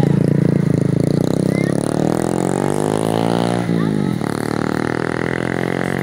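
A motorcycle engine running close by on the road, a steady droning note whose pitch sweeps down sharply as it passes about four seconds in.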